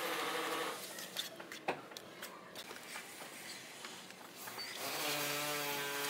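Steel trowel scraping and tapping wet mortar against a rendered concrete wall, with a few sharp clicks. About a second before the end a steady motor hum comes in.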